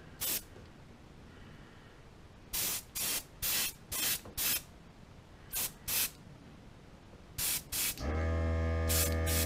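Airbrush spraying paint in about ten short bursts of hiss. About 8 seconds in, the air compressor kicks on and runs with a steady hum.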